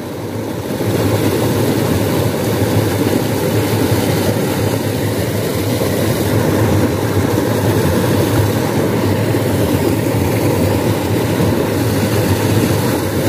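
Steady rushing of water flowing fast through a small irrigation ditch below a little weir, a loud, even rumbling hiss that swells over the first second and then holds.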